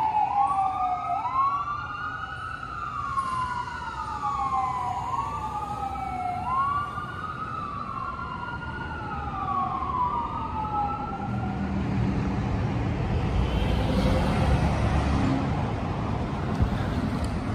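A fire rescue truck's siren wails as it moves away, its pitch sliding down and back up about every two seconds and fading out about two-thirds of the way through. Then a passing vehicle's engine and tyres swell up and die away.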